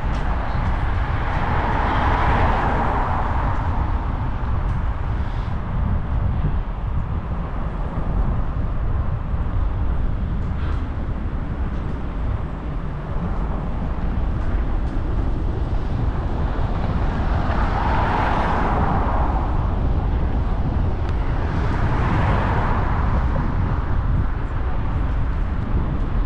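Steady low rumble of wind and road noise while cycling, with three vehicles swelling past and fading: one about two seconds in and two close together near the end.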